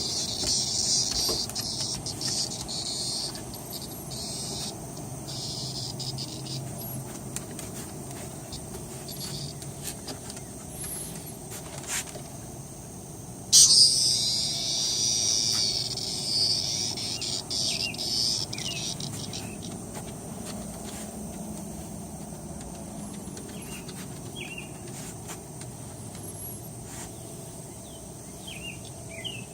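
Cicada buzzing while held in a dog's mouth: an uneven high buzz in the first few seconds, then a much louder buzz that starts suddenly about halfway through and wavers as it fades over several seconds, with shorter fainter buzzes near the end.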